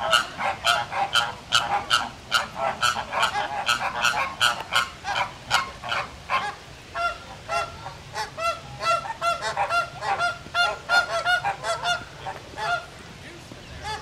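A flock of flamingos honking in a noisy squabble, many calls overlapping in quick succession, thinning to fewer, separate honks after about seven seconds and stopping near the end.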